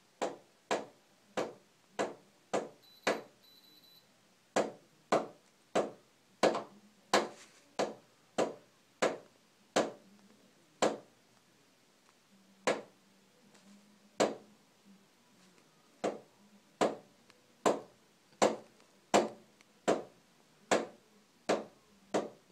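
A person making a long series of short, sharp clicking sounds to startle a cat, about one or two a second with a few brief pauses.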